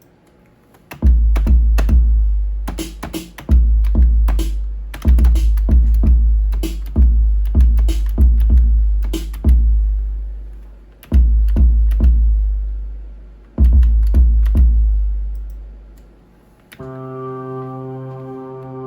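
Drum-machine sounds triggered from a MIDI controller through a DAW: deep kick drums with long low tails and sharp attacks, struck in irregular bursts. Near the end a sustained synthesizer chord comes in.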